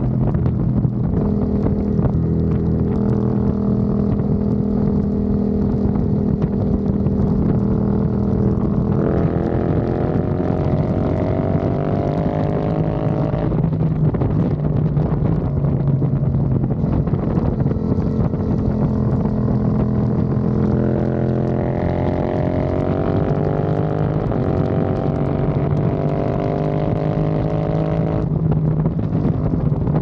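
Yamaha R7's parallel-twin engine running under way on the road, with wind rushing over the microphone. The engine note holds steady at first, then twice climbs in pitch as the bike pulls, each time dropping suddenly at an upshift, about halfway through and again near the end.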